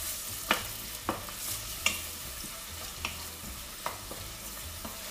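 Chopped onions sizzling in olive oil in a stainless steel pot as they begin to fry, stirred with a wooden spoon that knocks and scrapes against the pot about five times.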